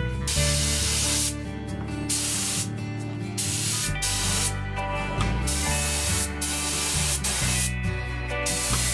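Compressed-air paint spray gun hissing in repeated bursts of about half a second to a second each, as the trigger is pulled and let go, spraying paint.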